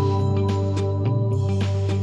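Background music with a steady beat, sustained notes and a strong bass line.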